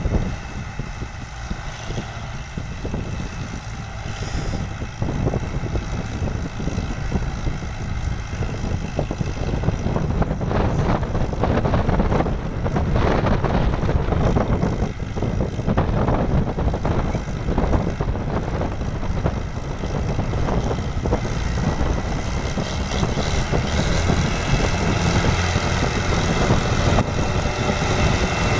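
Diesel farm tractor engine working under load as it pulls a trolley heavily loaded with sugarcane, growing steadily louder as it comes closer.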